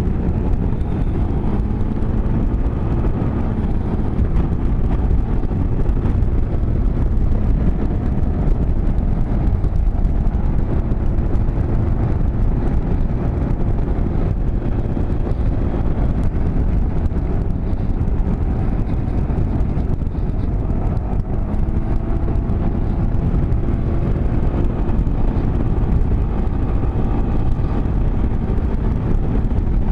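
A small 200 cc motorcycle engine running steadily near wide open under load, pulling the bike up a long mountain grade at about 60 mph, with a constant rush of low road and wind noise.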